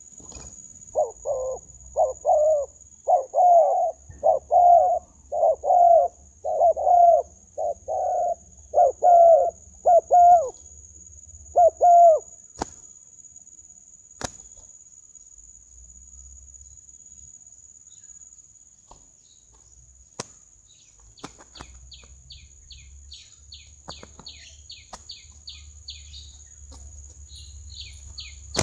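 Spotted dove giving a fast series of about a dozen short, loud coos over the first twelve seconds, then a couple of sharp knocks. A small bird chirps quickly, about three notes a second, through the last third.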